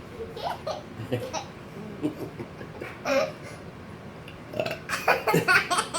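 A toddler giggling and babbling in short bursts, busier near the end, amid family laughter.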